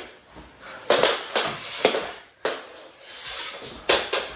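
A run of sharp knocks and thuds with scuffling between them: mini hockey sticks and a puck clacking and players scrambling and falling on a hard floor during a mini-stick hockey game.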